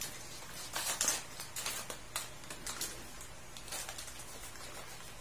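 Plastic sachet of powdered milk crinkling and rustling in the hands as it is squeezed and shaken to pour the powder out, in irregular crackles.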